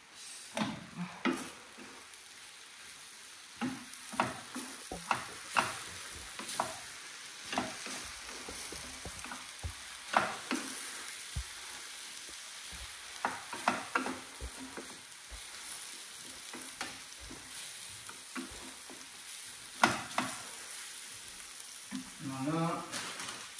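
Greens and filling sizzling in a frying pan on a gas stove, with a steady hiss, while a wooden spoon stirs and scrapes the pan, making many irregular knocks and clicks.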